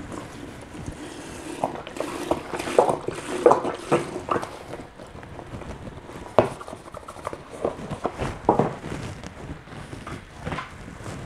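Milk glugging and splashing from a carton into a large glass, with a few sharp knocks as the carton and glass meet the stainless steel counter.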